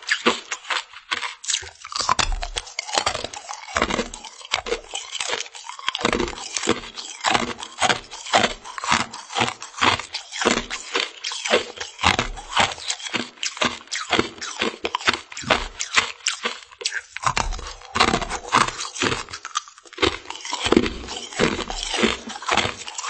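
Close-miked chewing of frozen mermaid-tail-shaped sweets: a steady run of crisp crunches, several a second.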